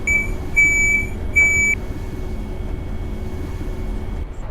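A run of high electronic beeps of uneven length inside a bus, ending a little under two seconds in, over the low steady hum of the bus's engine.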